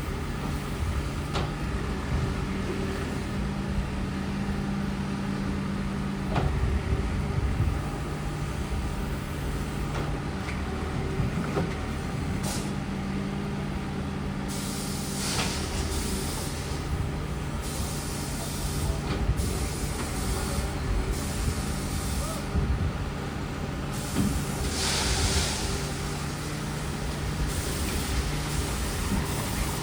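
Heavy diesel construction machinery running steadily at a worksite, with a couple of short bursts of hissing air partway through.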